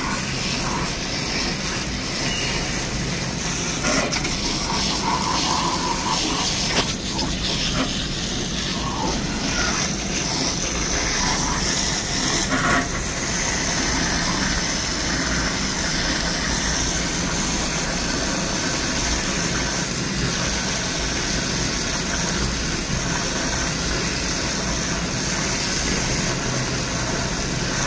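Hot water from a hose nozzle spraying steadily onto a produce case's evaporator coil and drain pan: a continuous hiss of the jet with splashing, flushing out slime that plugs the drain.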